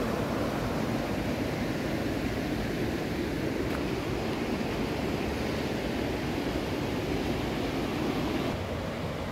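Steady rushing of a river's flowing water, an even noise without breaks that dips slightly near the end.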